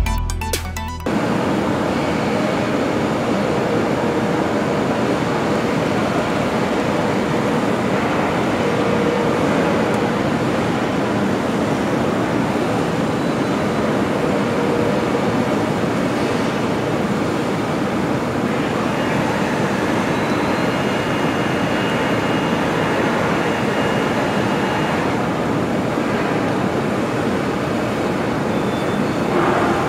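Music cuts off about a second in, giving way to steady industrial machinery noise, an even rumble and hiss with no rhythm, and a faint high whine partway through.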